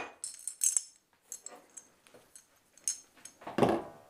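Light clinks and clatter of small hard fan parts being handled: the ceiling fan's short downrod and its collar fittings. A louder knock comes near the end.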